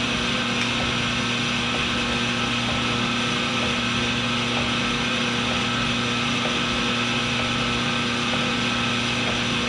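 Sunnen CK10 cylinder-honing machine running steadily, its motor humming while the hone works inside a cylinder bore of the engine block.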